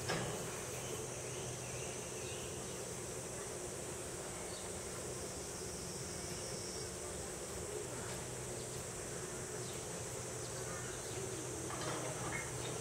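Steady high insect drone over a low outdoor background hum, with one brief knock right at the start.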